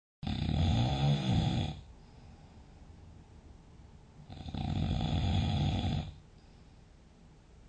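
A sleeping person snoring loudly: two long snores about four seconds apart, each lasting well over a second, with quiet breathing between them. A split-second dropout to silence comes right at the start.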